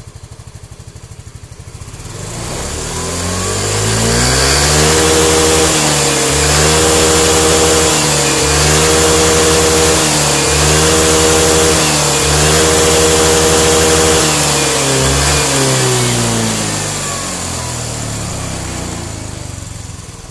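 Yamaha 125 cc fuel-injected scooter engine revved up hard, with short dips about every two seconds, then easing back down near the end. It is being held at high revs to check the charging voltage at the regulator, which reads a normal 14–15 V DC.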